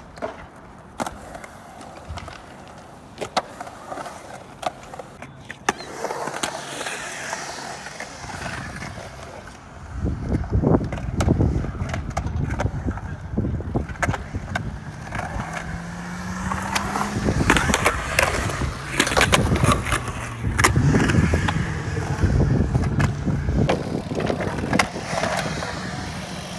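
Skateboard wheels rolling on a concrete skatepark bowl, with sharp clacks of the board and trucks hitting the surface. The rolling gets louder and heavier from about ten seconds in.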